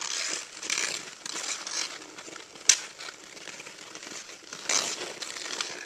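Ice skate blades scraping across pond ice in repeated strokes as hockey sticks scuffle for the puck, with one sharp crack a little before the middle.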